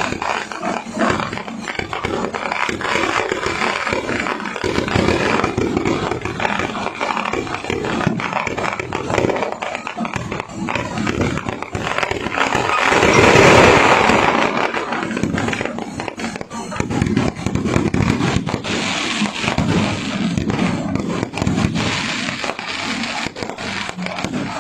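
Aerial fireworks bursting overhead: a dense run of bangs and crackles that swells to its loudest about thirteen seconds in.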